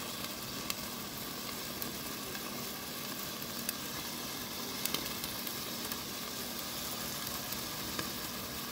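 Steady sizzling hiss with scattered faint crackles, as of food cooking on a hot stove, under a faint low hum.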